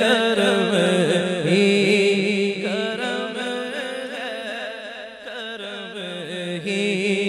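A male naat reciter singing a long, ornamented melodic line in Urdu, without instruments, over a steady low drone.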